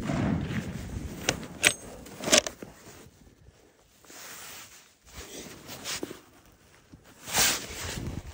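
Footsteps and the rustle of clothing and gear, with a few sharp handling clicks in the first two and a half seconds and a louder rustle near the end.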